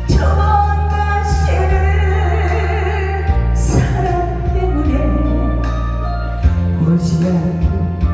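A woman singing a trot song over an amplified backing track, holding long wavering notes above a steady bass line.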